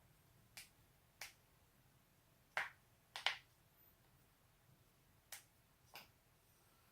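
A person's joints cracking: about seven short, sharp pops at uneven intervals, two of them in quick succession near the middle.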